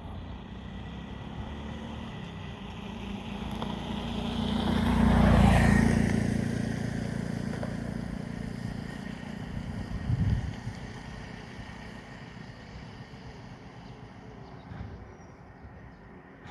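New Holland T7 245 tractor pulling a round baler past, the engine and machinery noise growing to a peak about five seconds in and then fading away. A short low thump comes about ten seconds in.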